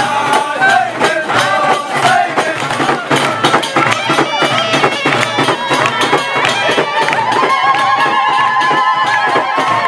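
Live Tunisian Hadhra music: frame drums beaten in a fast, dense rhythm under a sung or piped melody, with a long held note near the end, amid a crowd.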